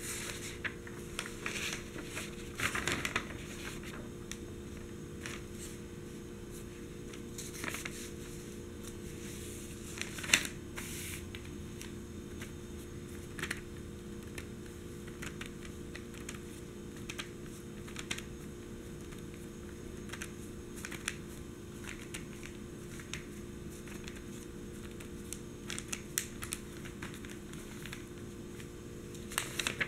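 Fingertips tapping and sliding on newsprint, with soft rustles of the paper: irregular light taps, a few quick runs of them, and one sharper tap about ten seconds in. A steady low hum sits underneath.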